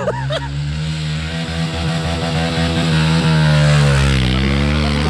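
A 110 cc pit bike's engine revs hard under load as it climbs a dirt bank. The pitch wavers, dips about four seconds in, then rises again.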